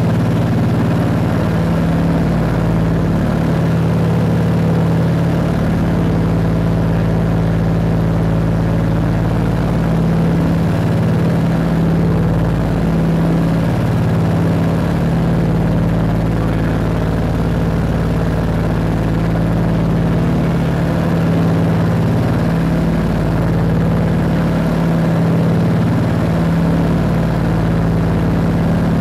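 Scottish Aviation Twin Pioneer's two Alvis Leonides radial piston engines and propellers running steadily in cruise, heard from inside the cabin as a loud, even drone with a strong low hum.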